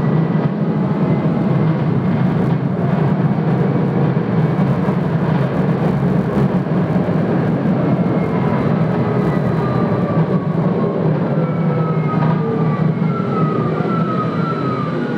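A Hitachi Rail tram running, heard from inside the passenger cabin: a steady, loud rumble of wheels on rail. Faint whining tones from the electric drive drift in pitch over it, and they slide downward in pitch in the last few seconds, as the tram slows.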